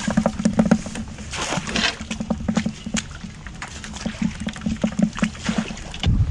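Freshly dipped smelt flopping and splashing in a plastic bucket of water: rapid, irregular knocks and splashes, with a burst of splashing about a second and a half in and a low thud near the end.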